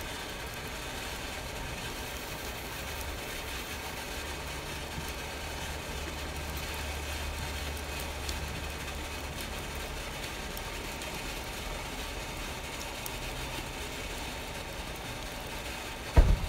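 Steady low machine hum with an even hiss above it, and one loud knock shortly before the end.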